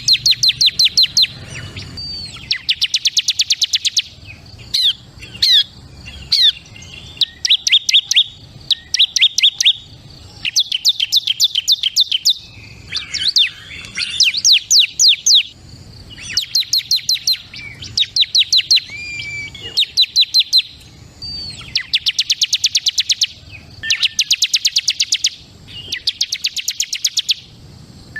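Bar-winged prinia (ciblek kristal) singing: repeated bursts of rapid, high, evenly spaced notes, each burst lasting a second or two and following the last with short pauses.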